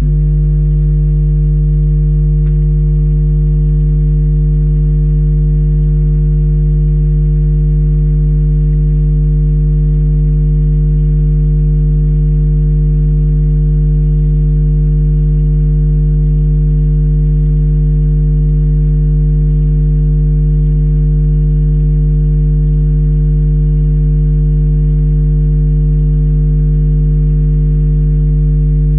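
Subwoofer playing a loud, steady low bass test tone for an amplifier output power test, driven by a 1500 W Class D mono amplifier, with a ladder of buzzy overtones above the fundamental.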